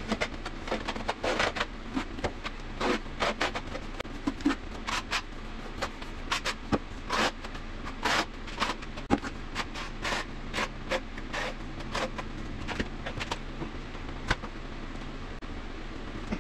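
Steel trowel scraping tile adhesive across the back of a ceramic tile, in short, irregular strokes, buttering the tile before it is set.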